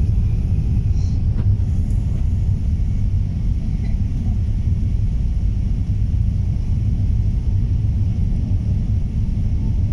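Jet airliner cabin noise during the climb after takeoff: a steady, loud low rumble of the engines and airflow.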